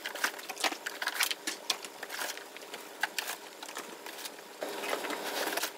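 Plastic IV fluid bags rustling and crinkling as they are handled and packed into a plastic storage drawer, with many small taps and knocks, busier near the end.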